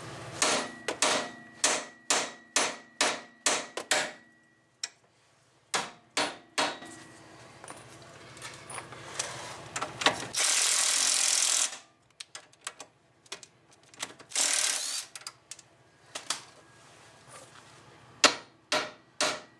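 A short-handled sledgehammer striking a car's steel steering knuckle, about two blows a second for several seconds, with a few more blows later and again near the end; the blows are meant to shock a tapered stud loose from the knuckle. About ten seconds in a cordless impact wrench runs for a second and a half, and again briefly a few seconds later.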